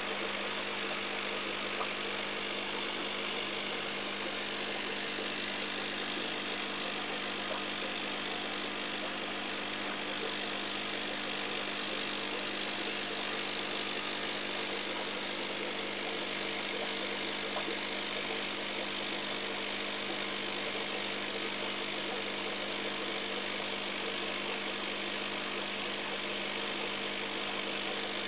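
Steady electric hum of aquarium equipment running, with a constant hiss of bubbling water.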